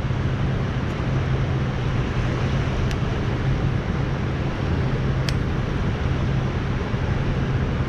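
Steady rushing of river current over rocks, an even hiss with a low rumble under it, and a few faint clicks.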